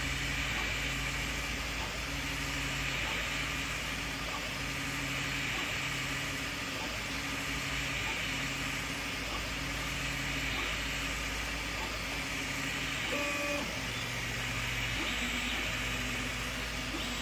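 Desktop FDM 3D printer with a direct-drive extruder printing: its stepper motors hum in short steady tones that change pitch every half second to a second as the print head moves, over a steady fan whir.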